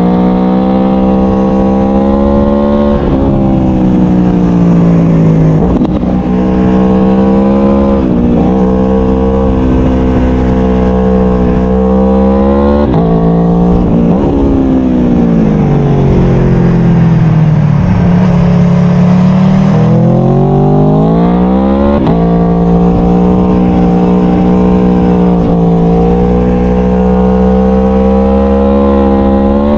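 Aprilia Tuono V4 1100's V4 engine heard onboard while riding, with wind rush underneath. In the first dozen seconds it pulls hard, the pitch dropping sharply at several quick upshifts. About halfway the revs fall away as the bike slows, then climb again and hold steady near the end.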